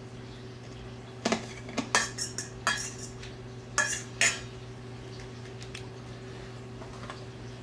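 Metal fork mashing hard-boiled egg yolks in a stainless steel mixing bowl, clinking and scraping against the bowl. A quick run of sharp clinks starts about a second in and stops about four seconds in.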